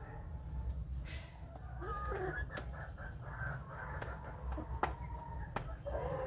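Young chickens clucking and giving short calls as they feed, with a few sharp taps of beaks pecking, over a steady low rumble.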